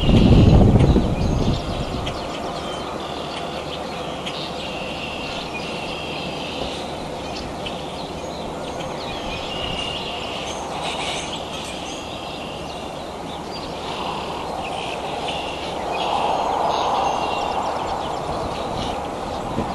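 Outdoor ambience with small birds chirping repeatedly over a steady low background noise. A loud low thump comes in the first second and a half, and a broad rumble swells from about fourteen seconds in before easing near the end.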